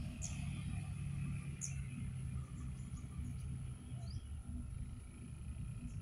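Insects trilling steadily outdoors, with a low rumble underneath and a few brief, high chirps scattered through.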